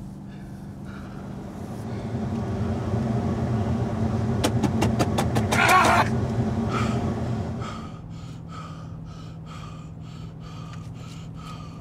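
Inside a car, a low steady engine and road drone swells louder from about two seconds in. At its peak, near the middle, a man screams over a quick run of sharp clicks. The drone then drops back, and quick, rhythmic panting breaths follow.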